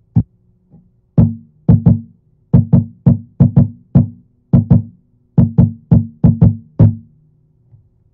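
Homemade cigar box stomp box with piezo pickups, amplified through a small Vox amp, slapped by hand in a drum-like beat. It gives about eighteen loud, bassy thumps, each ringing briefly, and stops about a second before the end.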